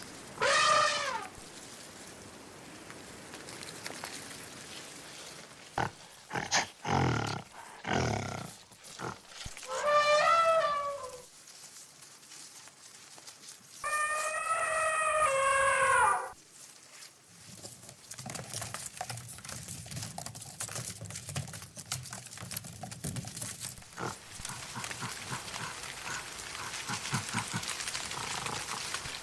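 Animal-like cries: a falling call, a few sharp knocks, another falling call and a longer held cry, followed by a low crackling, rustling noise.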